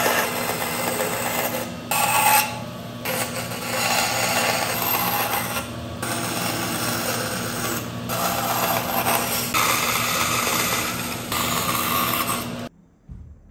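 Benchtop bandsaw running with a steady motor hum while its blade cuts through wood, the cutting noise swelling and easing several times as the pieces are fed through. The sound cuts off abruptly near the end.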